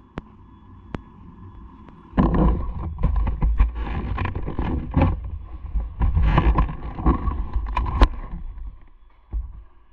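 Motorcycle ride noise: an irregular rumble with wind buffeting on the microphone comes in abruptly about two seconds in and dies away near the end, after a few sharp clicks at the start.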